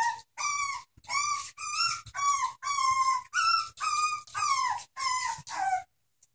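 Havanese puppy whining in a run of short, high-pitched whines, about two a second, some falling in pitch at the end, until they stop just before the end. The whining of puppies wanting out of the pen to play.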